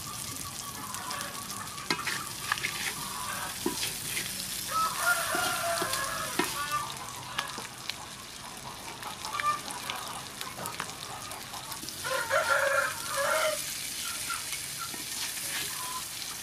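Mantis shrimp stir-frying in a metal wok with garlic and breadcrumbs: a steady sizzle, with clicks and scrapes as a wooden spatula tosses them. Two louder pitched calls sound over it, about five seconds in and again about twelve seconds in.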